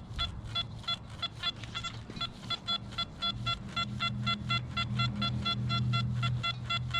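Metal-detecting pinpointer beeping rapidly and evenly, about six short beeps a second, the alert it gives when held over a metal target. A low hum swells under the beeps about three seconds in and fades near the end.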